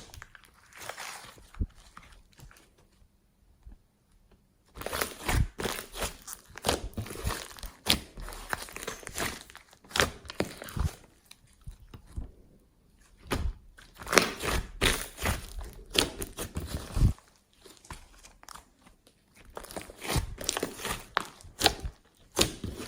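Clear slime being squeezed and stretched by hand, giving clusters of sticky clicks and pops, with a few short pauses between handfuls.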